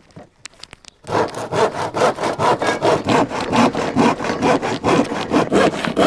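Handsaw cutting through an MDF panel, starting about a second in with rapid, even back-and-forth strokes.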